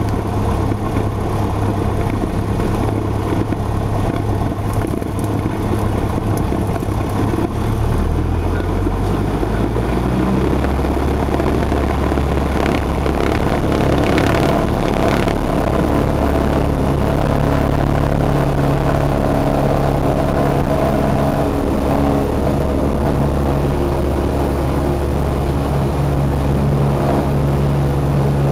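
Single-engine light airplane's piston engine and propeller heard from inside the cabin, running steadily, then changing pitch about eight to ten seconds in and holding that steady pitch through the takeoff roll.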